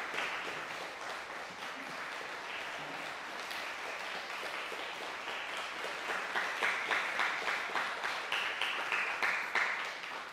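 Audience applauding, louder from about six seconds in.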